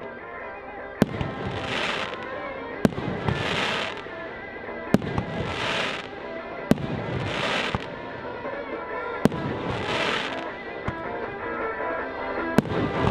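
Fireworks display: six sharp bangs, roughly every two seconds, each followed by about a second of crackling hiss as the shell bursts.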